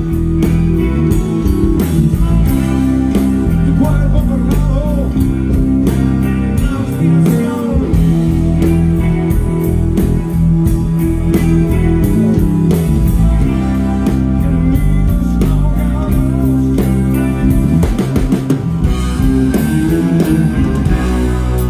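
Live rock band playing: electric guitar with bending notes over electric bass and a steady drum beat.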